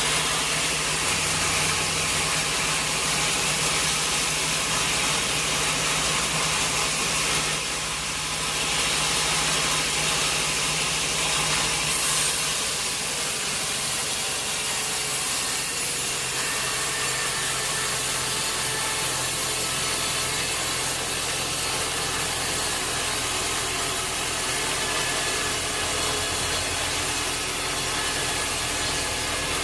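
Sawmill machinery running steadily, a motor hum under the noise of a saw cutting wood. The low hum changes pitch about twelve seconds in.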